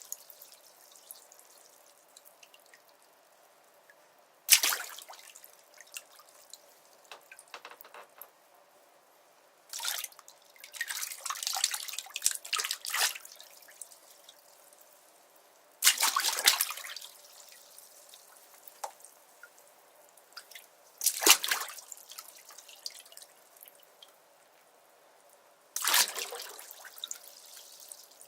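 Water in a bathtub splashing in separate bursts, each starting sharply and trailing off in drips, about every five seconds. There is a longer run of splashing and sloshing near the middle.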